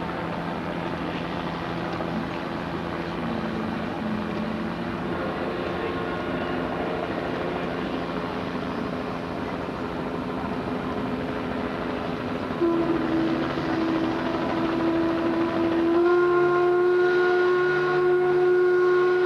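A steam sternwheeler's whistle sounding long, held blasts at several pitches. Quieter tones come first, then a louder blast starts about 13 seconds in, and the loudest chord begins about 16 seconds in and holds for about three seconds.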